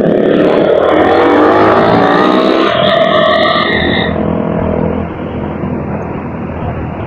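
Road vehicle engine speeding up, its pitch rising over the first three seconds, then holding a steady tone briefly before the level drops and settles about five seconds in.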